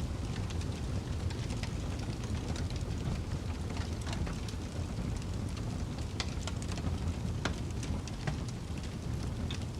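Log fire crackling in a fireplace: scattered sharp pops and snaps over a steady low rumble, with the wind of a mild snowstorm outside.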